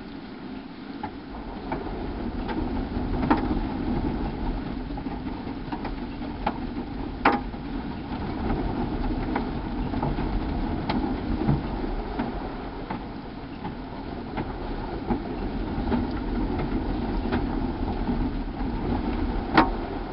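Automatic car wash machine running, heard from the car being washed: a steady rumble with irregular sharp taps and clicks, the loudest about seven seconds in and just before the end.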